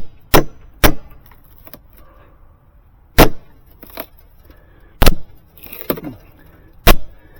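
Hammer blows on wood and nails, knocking a rotted deck stair tread up off its stringers. Three quick strikes in the first second, then three more spaced about two seconds apart, with a few lighter taps between.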